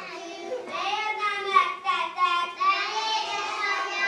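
A group of young children singing together, high voices holding long steady notes.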